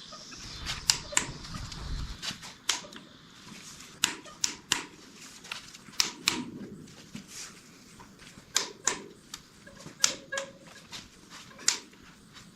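Sharp metal taps and clicks of hand tools on a 6.0L LS V8 during piston and connecting-rod removal, coming in irregular groups of two or three a few tenths of a second apart.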